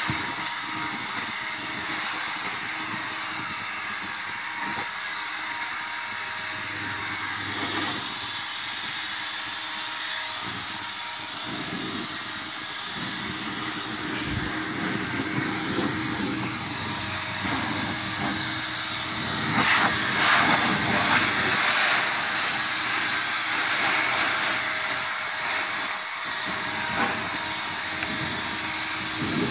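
Leaf blower running steadily, growing louder for several seconds about twenty seconds in.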